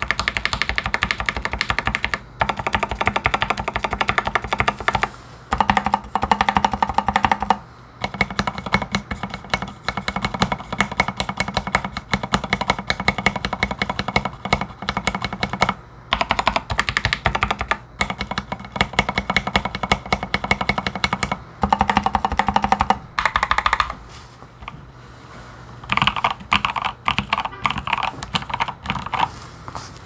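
Typing on an Exclusive E8.5 mechanical keyboard with lubed and filmed Gateron Ink Black linear switches and SA-profile keycaps: fast runs of keystrokes with short pauses between them, thinning out and quieter near the end.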